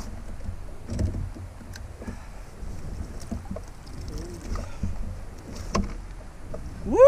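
Handling sounds as a landing net with a big redfish is hauled aboard a kayak: a low rumble with scattered knocks and clicks. Near the end comes a short, loud vocal exclamation that rises and falls in pitch.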